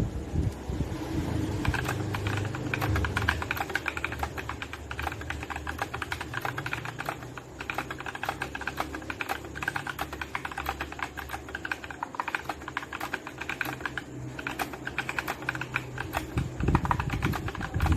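Rapid, continuous typing on a mechanical keyboard fitted with Akko POM Pink linear switches (45 g, POM housing), giving a fast run of keystrokes, with a low hum underneath.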